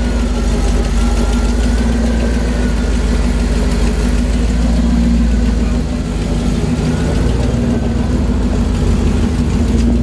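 1998 Jeep Grand Cherokee's 5.9 V8 running steadily in gear with the wheels spinning free on jack stands: a steady drivetrain hum with a faint wavering whine above it. The truck is being run to find a front grinding noise, which the owner suspects comes from a wobbling front CV joint.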